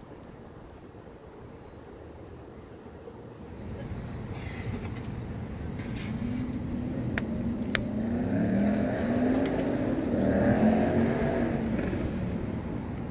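Many voices cheering and shouting together, swelling from about four seconds in and loudest near the end, with a couple of sharp claps a little after seven seconds.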